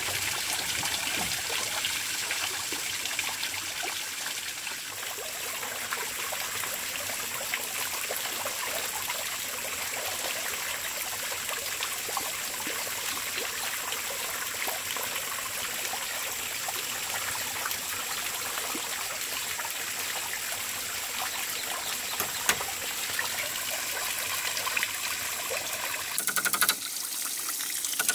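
Water trickling steadily into a pond, with a few sharp knocks near the end.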